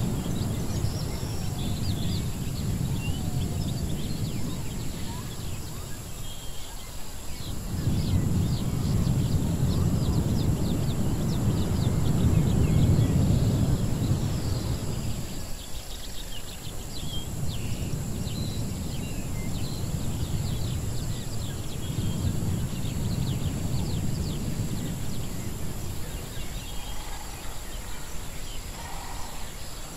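Edited jungle-ruins ambience: a low rumbling wash that fades out briefly twice and swells back, with scattered small bird chirps and ticks high above it.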